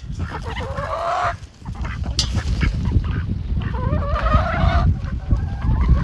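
Farm poultry calling while they are fed: two drawn-out, rising honking calls, one near the start and one near the middle, over a steady low rumble.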